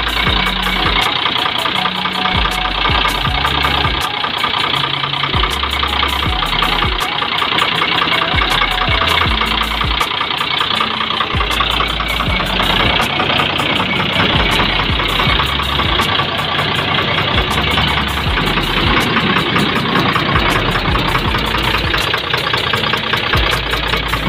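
Bus diesel engine running at idle with a fast, steady ticking, the tick that is being checked during its tune-up.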